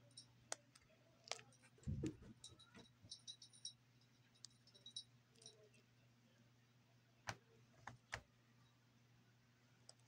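Near silence with a faint low hum, broken by a few sharp clicks, a soft thump about two seconds in, and a short run of faint high ticks.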